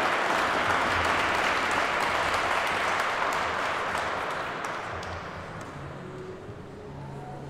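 Spectators applauding a skater, a dense patter of clapping that dies away over the last few seconds.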